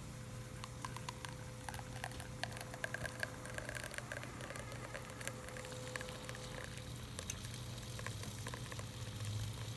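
Espresso shot running from a La Pavoni lever machine's group head into the cup, a fine crackle of spluttering drips and pops over a steady low hum. The crackling thins out after about six seconds.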